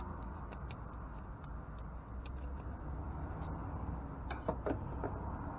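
Small scattered clicks and ticks of a halogen headlight bulb and its plastic holder being handled, metal and plastic knocking together, with a slightly louder cluster of clicks about four and a half seconds in.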